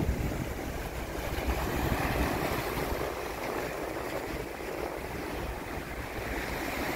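Sea waves washing and breaking over the rocks of a breakwater, with wind rumbling on the microphone.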